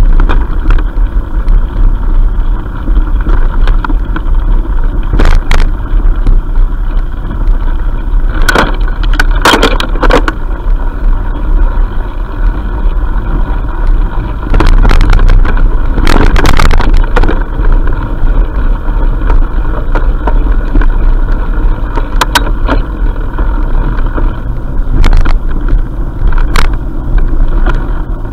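Steady low rumble and rattle of a two-wheeler riding over a bumpy dirt trail, picked up through a camera fixed on the handlebars, with sharp knocks and clatters from bumps at irregular moments throughout.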